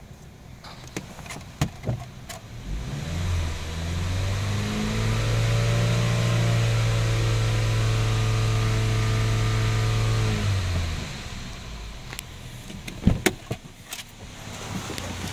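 A 2010 Chevy Malibu's 2.4-litre four-cylinder engine starts about three seconds in, heard from inside the cabin. It is revved up to about 3000 rpm and held there steadily for several seconds, then drops back to idle. A few sharp clicks and knocks come near the end.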